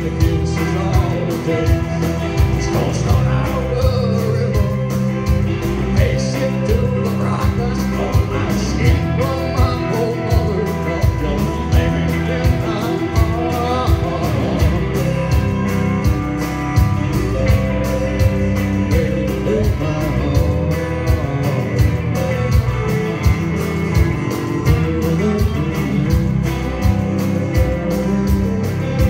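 Live rock band playing: amplified electric and acoustic-electric guitars over a drum kit keeping a steady beat.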